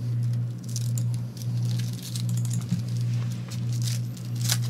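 Foil trading-card pack wrappers crinkling and crackling as they are handled and torn open. Underneath runs a steady low hum that dips at regular intervals.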